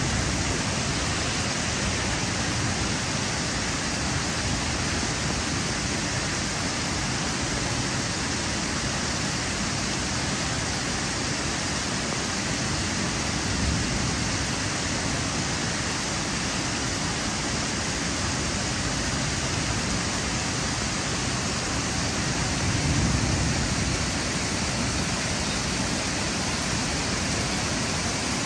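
Heavy rain falling steadily, a dense even hiss, with a brief low swell about three-quarters of the way through.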